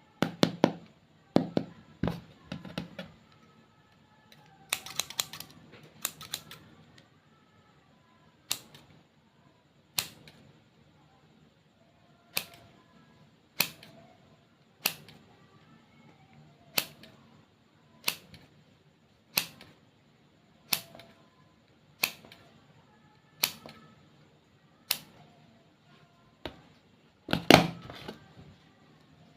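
Sharp clicks and pops from slime being handled. Bursts of them come in the first few seconds, then a single click about every 1.3 seconds, then a louder cluster near the end.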